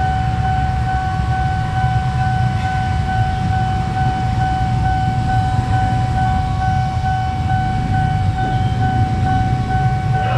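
Level-crossing warning alarm sounding a steady high tone while a KRL commuter electric train rolls in with a low rumble.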